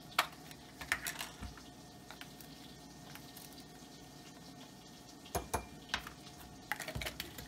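Scattered light clicks and taps of a plastic spice bottle, its shaker lid and a plastic measuring spoon against a glass jar and the countertop as spice is scooped out, with a small cluster of taps about five and a half seconds in and more near the end.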